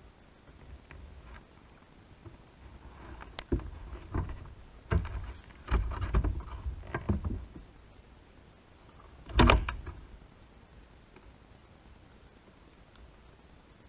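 Knocks and thumps against a kayak's hull: a quick run of them in the middle, then one louder thud a little later.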